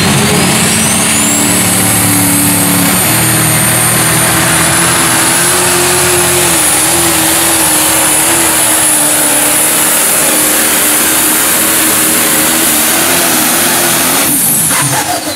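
Pro Stock pulling tractor's turbocharged diesel engine at full throttle, dragging a weight-transfer sled. A high turbo whine climbs over the first few seconds and then holds steady. The engine lets off sharply near the end.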